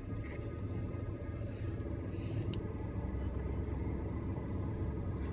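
Truck engine idling, a steady low rumble heard inside the cab, with a few faint clicks from handling a bagged comic.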